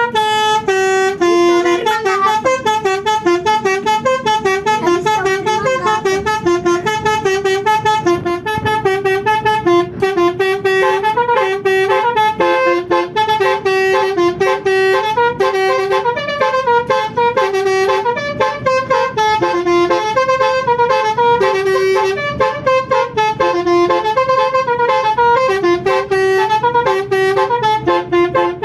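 Basuri telolet multi-tone horn on a bus playing a long melody, its notes stepping up and down several times a second with hardly a break.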